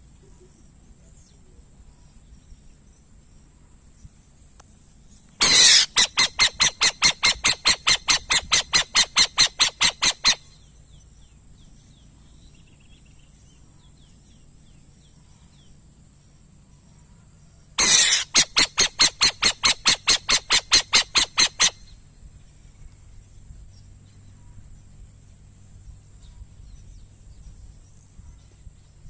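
A bird calling in two bouts of rapid, harsh, evenly repeated notes, about five a second. The first bout runs about five seconds and the second, starting about eighteen seconds in, runs about four.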